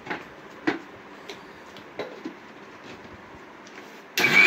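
A few light knocks of the steel mixer jar and its lid being handled on the counter, then near the end a Prestige mixer grinder switches on and its motor spins up with a loud whirr, rising slightly in pitch, to grind a mint and coriander chutney with water.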